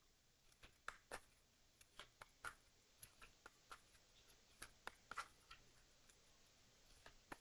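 Faint, irregular light clicks and rustles of tarot cards being handled.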